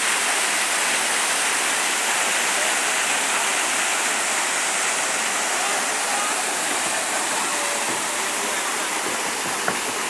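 Artificial waterfalls pouring over rock into a pool: a steady rush of falling water, with a short click near the end.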